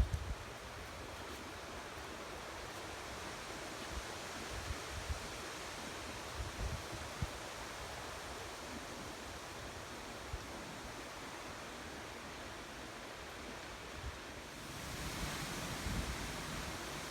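Steady outdoor rushing noise with scattered low buffets of wind on the microphone; it grows louder and brighter near the end.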